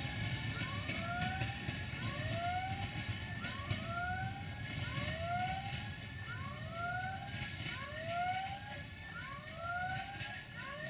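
A siren-like electronic warning tone that rises in pitch about once a second, two such tones overlapping out of step, over a steady low rumble.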